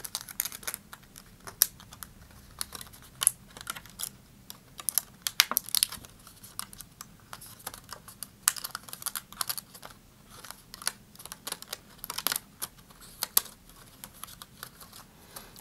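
Thin vacuum-formed plastic sheet being bent back and forth along its score lines, giving irregular clicks and crackles as the panels snap free.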